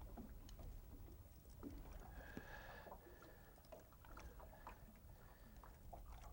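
Near silence: a faint low rumble with scattered soft clicks and knocks, and a faint steady high tone about two seconds in that lasts about a second.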